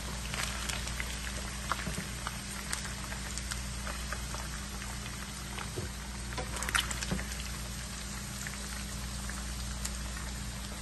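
Marinated chicken pieces shallow-frying in hot ghee and oil, sizzling steadily with many small crackling pops. A few louder pops stand out, most about two-thirds of the way through.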